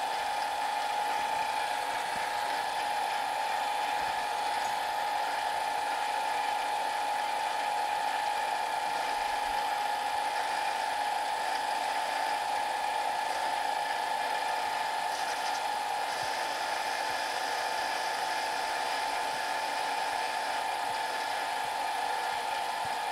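Harbor Freight 7x10 mini lathe running at a steady speed with a constant high whine, its carbide-insert tool taking a facing cut across the end of the spinning metal workpiece.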